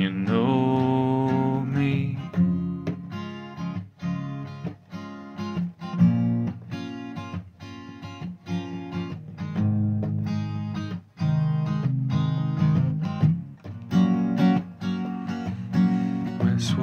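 Acoustic guitar strummed in a steady, even rhythm as an instrumental break between sung lines. A held sung note trails off in the first two seconds.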